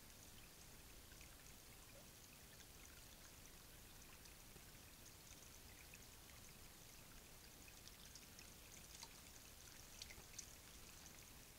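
Faint trickle of creek water, with scattered light ticks and a few slightly louder clicks near the end.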